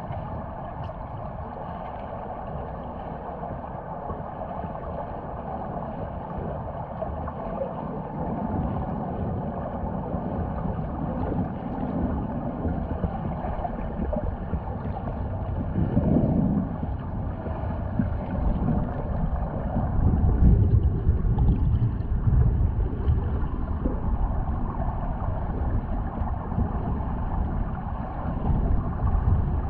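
Muffled underwater ambience of a swimming pool as picked up by a camera held underwater: a steady low rumble and water noise, swelling louder around the middle and again a little later.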